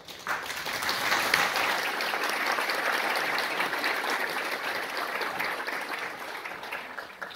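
Audience applauding: a dense patter of many hands clapping that comes in quickly, holds steady and tapers off near the end.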